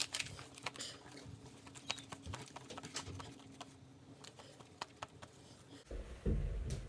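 Scattered light clicks and taps of vinyl and transfer-tape sheets being handled on a table, with a low thump about six seconds in.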